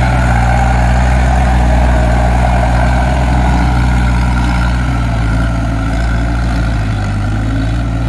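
Engine of a tracked Kubota rice harvester converted into a rotary tiller, running steadily as the machine crawls through a flooded paddy with its tiller working the mud.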